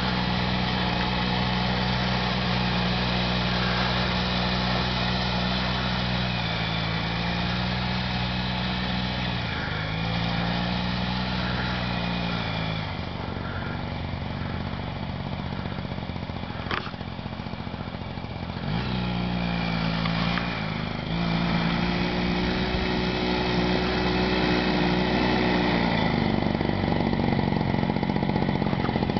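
Engine of a 1997 Arctic Cat Kitty Cat children's snowmobile, a small 120cc two-stroke, running as the sled is ridden, its pitch dipping and rising with the throttle several times. It grows fainter in the middle as the sled moves away, then louder near the end as it comes close.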